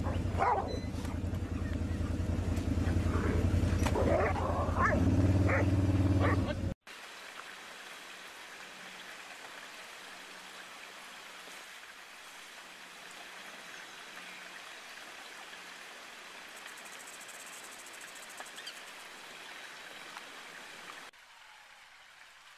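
A pack of dogs barking, yelping and snarling as they fight, over the steady low hum of a running car engine. About seven seconds in the sound cuts off sharply, and a steady faint hiss takes over.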